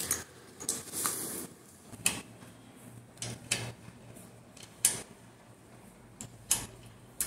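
Scattered single metal clicks and clacks, a second or so apart, from a Joker 10–13 mm self-adjusting open-end wrench being worked ratchet-style on a bolt head held in a vise, its jaw slipping back over the flats.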